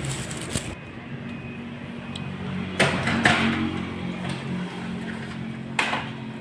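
Steady low machine hum with a few sharp knocks or clatters, the loudest about three seconds in.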